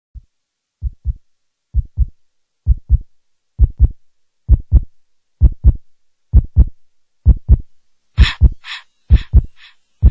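Heartbeat sound effect: paired lub-dub thumps about once a second, fading in and growing louder. From about eight seconds in, a brighter hissing layer joins each beat.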